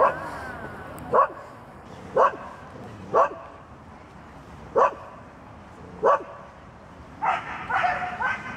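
A dog barking: single sharp barks roughly once a second, then a quicker, denser run of barks and yelps in the last second and a half.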